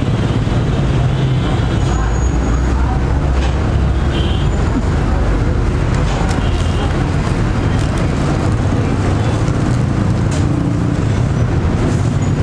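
Steady street traffic noise: vehicle engines running with a low rumble, with faint voices in the background.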